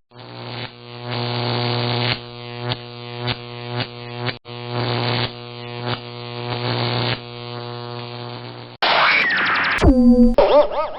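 A low electronic buzzing tone, swelling and easing in repeated pulses with a brief break about halfway. Near the end it gives way to a quick run of short synthetic effects with falling and wobbling pitch sweeps.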